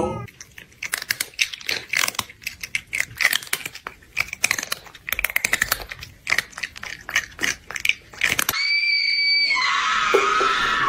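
Rapid crisp crunching and chewing, like someone munching something crunchy, for about eight seconds. Then a steady high beep for about a second, followed by a short hiss.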